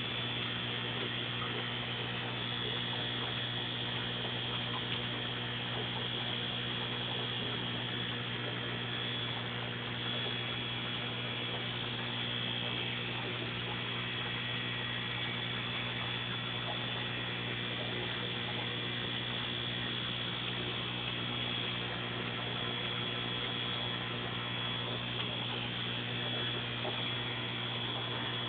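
Steady electric hum of running aquarium equipment, with a thin high whine held above it and no change throughout.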